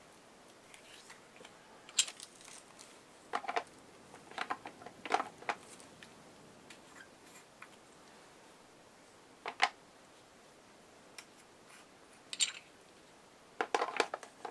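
Small plastic screw lids being taken off watercolor paint pots and set down on a table: scattered light clicks and clacks, with a small cluster near the end.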